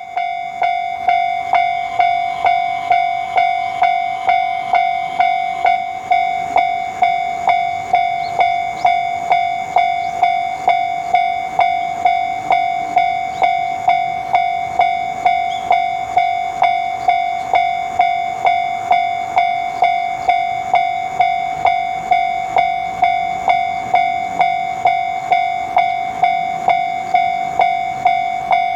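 Japanese railroad crossing warning bell ringing its 'kan-kan' alarm: one ringing ding repeated evenly, about two strikes a second.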